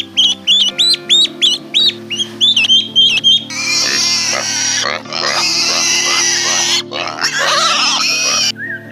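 Ducklings peeping in a fast run of short high cheeps, several a second. About three and a half seconds in they give way to a group of piglets squealing, over steady background music.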